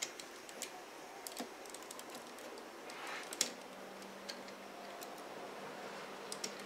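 Hard plastic parts of a Seven Sword model kit clicking and tapping together as the swords are handled and pushed onto the model: scattered light clicks, one sharper than the rest a little over three seconds in.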